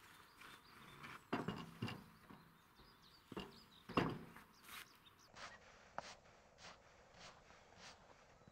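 A freshly sawn wooden slab being slid and lifted off a log on a chainsaw mill's bed: a few knocks and scrapes of wood, the loudest about four seconds in, then faint light taps.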